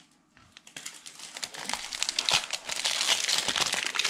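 Plastic trading-card pack wrapper crinkling as it is handled and crumpled, starting about a second in and growing denser and louder.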